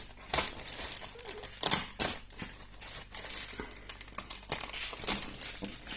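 Packing tape being cut and pulled off a parcel: a run of short scratchy strokes and rustles of packaging.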